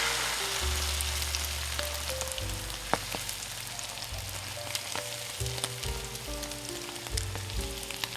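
Food sizzling on a hot iron griddle, a steady frying hiss with a sharp click about three seconds in, under background music with bass and melody notes.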